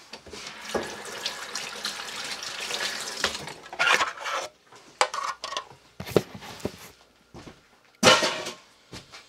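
Water running at a kitchen sink for about three seconds, then several separate clinks and clatters of metal kitchenware.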